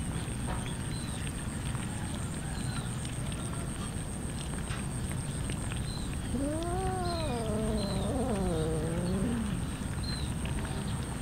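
A cat gives one long, wavering meow about six seconds in, lasting about three seconds. Behind it are short high chirps, a thin steady high tone and a steady background hiss.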